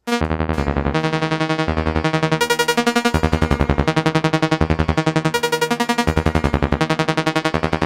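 Make Noise Spectraphon in spectral amplitude modulation (SAM) mode, excited by short Maths function pulses: a fast, even stream of bright pitched synthetic plucks whose note steps every half second to a second.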